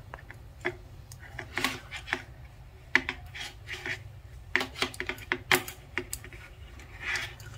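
Metal double-pointed knitting needles clicking and tapping against each other as knit stitches are worked, in irregular light clicks about two a second.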